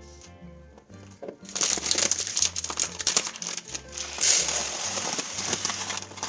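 Crinkling and rustling of food packaging for about four and a half seconds, starting about a second and a half in, over background music.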